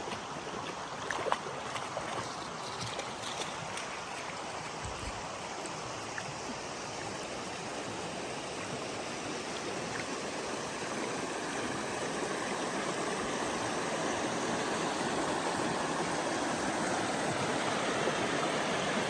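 Flowing river water rushing steadily, growing gradually a little louder.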